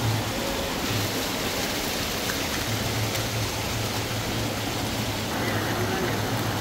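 Steady rush of a swollen rain-fed stream tumbling over rocks, with runoff spilling down stone steps.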